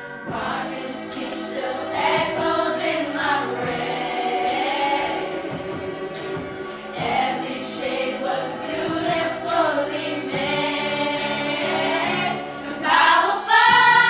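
A group of girls singing together as a choir, in long, sliding notes. The singing swells loudest near the end, on high notes.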